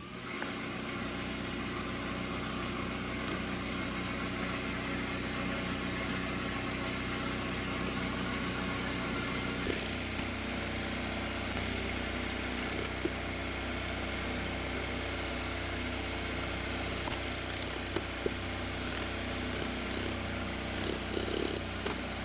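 Electric motor spinning a rebuilt Triumph Spitfire single-rail gearbox on a test bench, a steady mechanical hum and whir, with its low tone changing about ten seconds in and a few light clicks later on.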